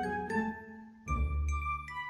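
Background music: held notes at several pitches over a bass line. It drops away briefly about halfway through, then comes back in.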